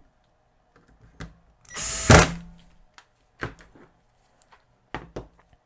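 Cordless drill/driver spinning briefly, about half a second, while driving a screw into the meter's plastic rear case about two seconds in. It is followed by a few short clicks and knocks of the meter being handled and its rotary selector switch being turned.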